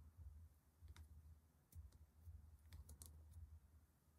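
Near silence: a few faint, scattered clicks over a low hum as a small metal crochet hook works fine cotton thread.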